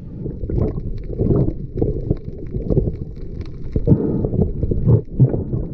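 Muffled, irregular water sloshing and rumbling, heard through a diver's underwater camera housing while swimming over a reef, with stronger surges about a second and a half and four seconds in.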